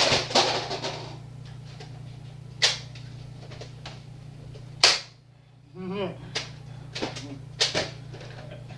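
Sharp snaps and smacks of Nerf blasters firing and foam rounds hitting, about six separate hits spread over several seconds, with a short vocal exclamation about six seconds in over a steady low hum.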